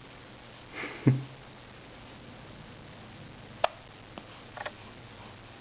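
A baby hiccuping once about a second in: a brief intake of breath, then a short, sudden hiccup. A few faint clicks follow later.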